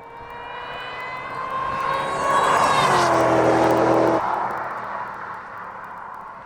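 A car accelerating past: its engine note rises in pitch as it approaches, is loudest about three seconds in where the pitch drops sharply as it goes by, then fades.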